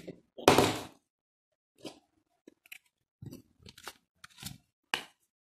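A paper sheet being handled on a tabletop: one loud crinkling rustle about half a second in, then several shorter rustles and light ticks.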